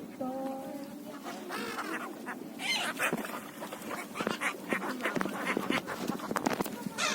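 A flock of water birds calling, many short overlapping calls at once.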